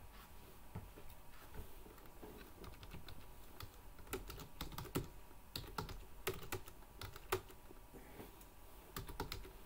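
Computer keyboard typing: faint, irregular keystrokes in short runs as a line of code is entered.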